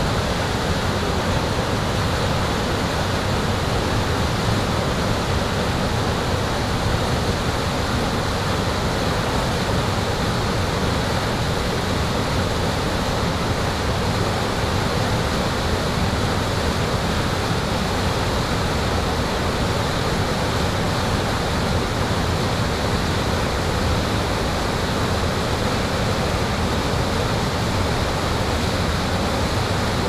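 Kivach waterfall on the Suna River, white water rushing steadily over rock ledges.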